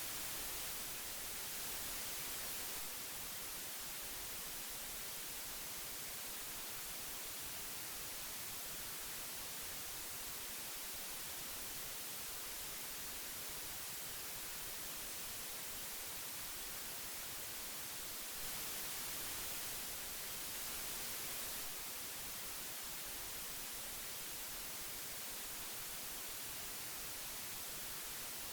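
Old magnetic tape hiss: a steady, high hiss with no tones or clicks. It is slightly louder for a few seconds at the start and again about two-thirds of the way through.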